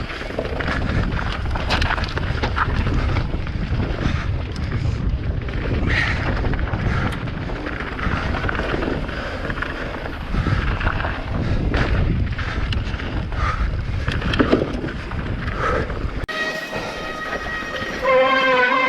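Wind buffeting the microphone over the rattle and clatter of a mountain bike riding fast over rough ground. Near the end the sound cuts off suddenly and a wavering pitched tone takes over.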